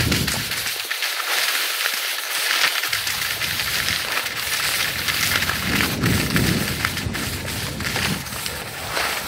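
Skis sliding and scraping over packed snow, a steady crackling hiss, with wind rumbling on the microphone at times, strongest about six seconds in.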